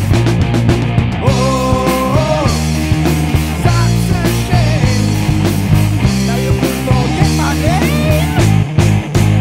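Rock song played by a band on electric guitar, bass and drum kit, with a steady beat and a melody line that bends in pitch.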